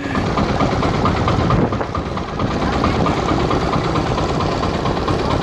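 Small wooden tourist boat's engine running steadily, heard up close from on board; it gets louder right at the start and holds an even chatter.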